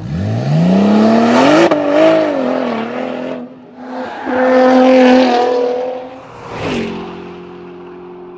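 Car engine sound effect revving: the pitch climbs steeply from low in the first second, holds high and wavers, drops, then revs up again about four seconds in. A sharp whoosh near seven seconds gives way to a steady held tone.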